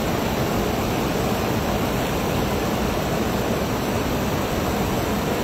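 Steady rushing of shallow river water flowing around a wader as he gathers in a cast net, an even noise with no distinct splashes.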